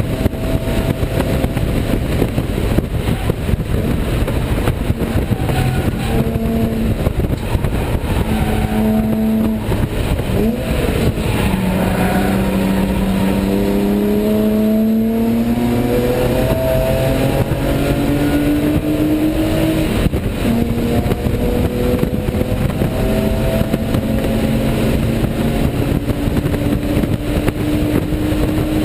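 BMW E36 race car's engine heard from inside the cabin at speed. Its pitch climbs several times under acceleration and breaks off between climbs, over loud wind and road noise.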